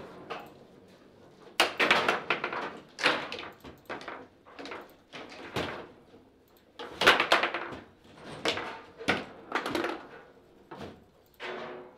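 Foosball table clatter: the ball is struck by the plastic figures and the rods knock against the table, giving irregular sharp knocks with a brief ring, about fifteen in all.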